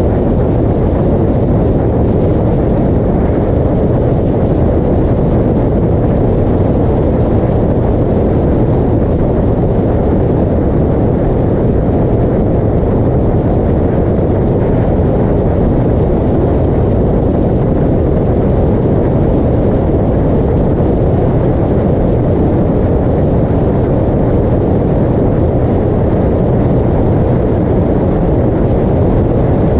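Motorcycle cruising at highway speed: a loud, steady rush of wind and road noise with no changes in pitch or level.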